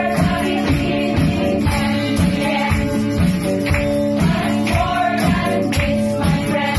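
Live gospel worship song: a woman's lead vocal through a microphone over guitar-led band accompaniment with a steady beat.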